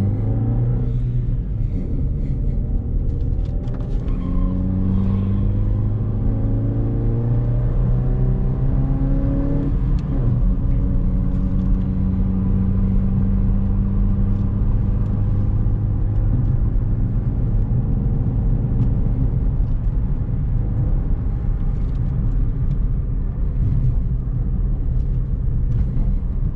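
Chevrolet Beat's engine, fitted with a K&N aftermarket air filter, pulling the car uphill. Its pitch climbs over roughly the first ten seconds, then holds steady as the car cruises.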